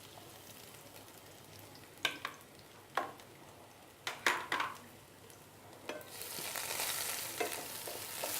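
A few sharp knocks, then from about six seconds in a steady sizzle: garlic frying in a little hot oil in a pan.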